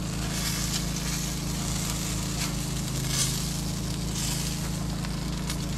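Meatloaf sizzling on the hot grate of a Big Green Egg kamado grill over glowing charcoal while two spatulas work under it to lift it off. A steady sizzle with a few louder hissing swells.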